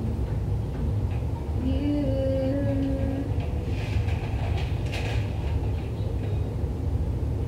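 Artificial plant stems rustling and plastic pots being handled, with short rustles and light knocks, busiest about four to five seconds in. Under it runs a steady low rumble. A brief held tone sounds about two seconds in.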